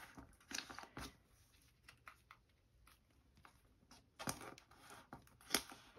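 Faint rustling and light clicks of plastic binder sleeves as photocards are handled and slipped into the pockets, coming in a few short clusters around a second in and again near the end.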